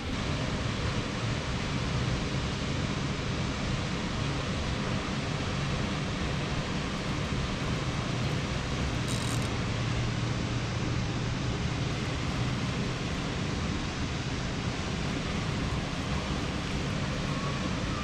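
Steady rush of fast-flowing river water.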